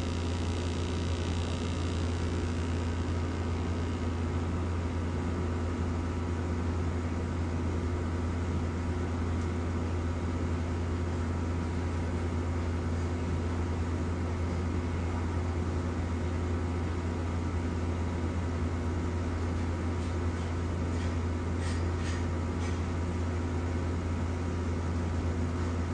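Hot-air heat gun blowing steadily, its fan motor humming under a hiss of air, as it heats solder paste to reflow it under a surface-mount capacitor. A few faint ticks sound a little after twenty seconds in.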